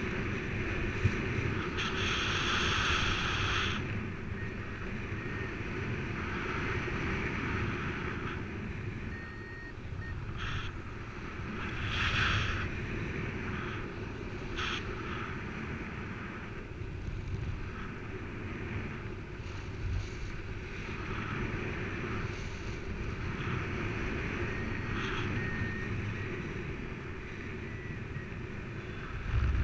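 Wind rushing over the camera microphone during a paraglider flight: a steady rush of air that swells in gusts, strongest about two to four seconds in and again about twelve seconds in.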